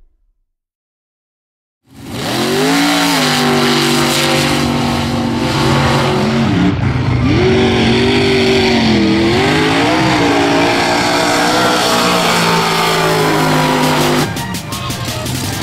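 Silence for about two seconds, then a mega truck's engine running hard at high revs, its pitch rising and dipping as the throttle is worked. Near the end the sound cuts abruptly to a quieter engine with more noise.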